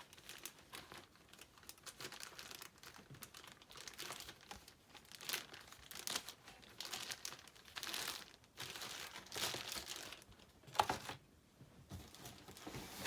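Packaging crinkling and rustling in irregular bursts as CGC-graded comic slabs are unwrapped and handled.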